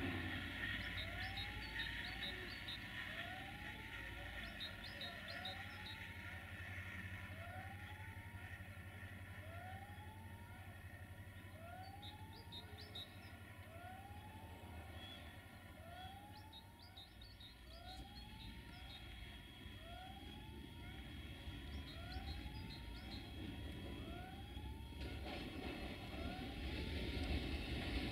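An electronic warning tone sweeping upward, repeated very evenly about every second and a half. Over the last few seconds the diesel rumble of an approaching Desiro railcar rises underneath it.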